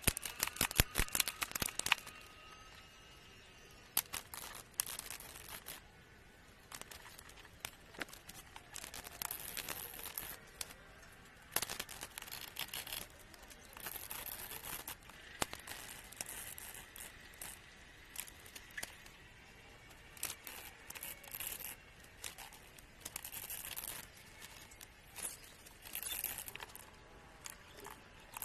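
Plastic packaging being handled, crinkled and torn open, with irregular clicks and taps of small hard parts among the rustling.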